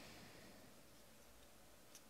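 Near silence: faint rustle of baseball cards being sorted by hand, with one brief click near the end.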